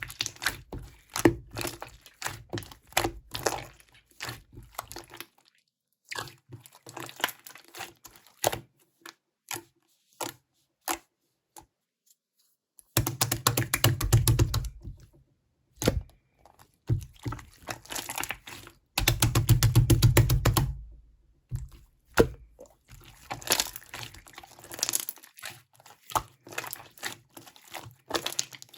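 Hands squishing and pressing slime, making crackling, clicking pops, with two longer stretches of dense rapid crackling about halfway through.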